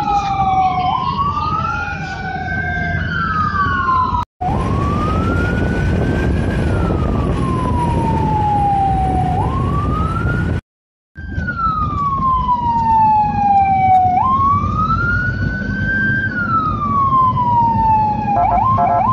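Electronic sirens of an ambulance escort wailing in slow rises and falls over engine and road noise. At first two sirens wail out of step, and the sound cuts out briefly twice. Near the end a siren switches to a rapid yelp.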